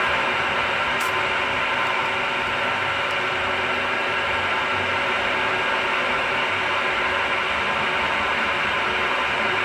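Milling machine geared down to 200 RPM, running steadily while a 40 mm drill bores the first big hole under hand quill feed: an even machine noise with a steady hum and gear whine. A faint click about a second in.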